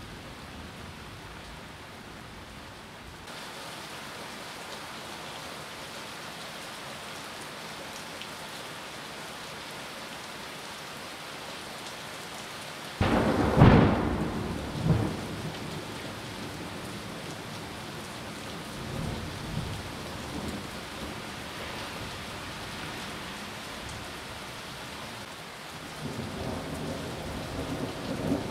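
Steady heavy rain on trees and leaves, growing heavier a few seconds in. About halfway through, a sudden loud clap of thunder rumbles away over a couple of seconds, with quieter rumbles of thunder later and again near the end.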